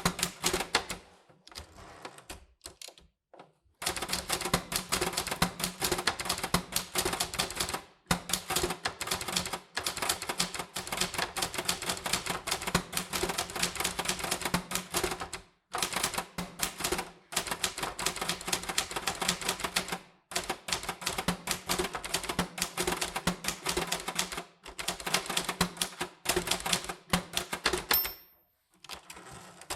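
Typewriter keys striking in fast runs, broken by short pauses between words and lines. Near the end the typing stops and a brief high ring sounds.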